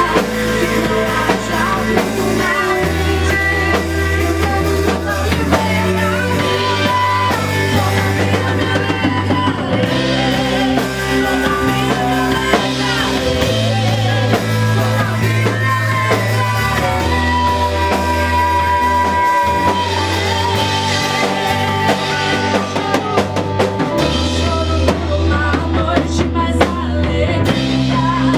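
Live band playing a Christian worship song: a voice singing over drum kit and guitar.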